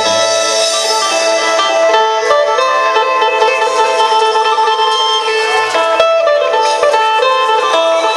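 Isan phin, a plucked Thai lute, playing a quick melody over a steady drone.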